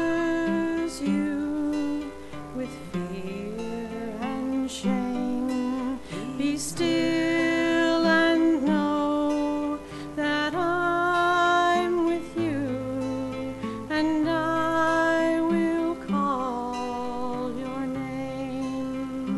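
Acoustic guitar strumming a slow accompaniment while a woman sings a sustained, gliding melody line.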